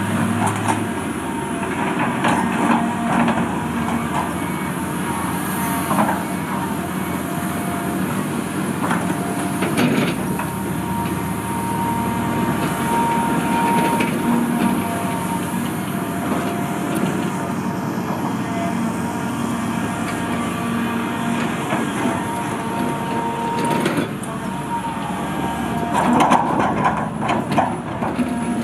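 John Deere tracked excavator working: diesel engine and hydraulics running steadily with a whine, and clanks and knocks now and then as it digs and moves dirt.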